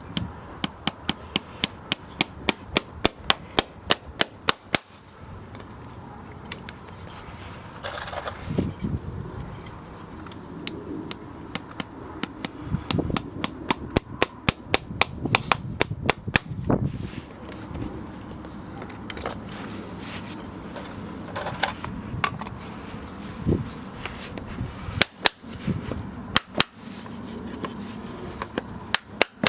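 Farrier's hammer striking in quick runs of sharp taps, about four a second, in three bursts with pauses between.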